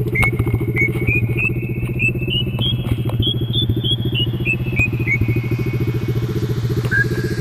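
SDG 125cc pit bike's single-cylinder four-stroke engine idling steadily. Over it, a series of short high chirps steps up and then back down in pitch during the first five seconds, with one more near the end.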